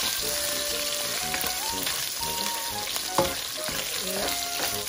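Pork belly sizzling in its own rendered fat in a nonstick pan, the water cooked off so the meat is now frying and browning. A spoon scrapes and taps against the pan as the pieces are stirred, with one sharper knock about three seconds in.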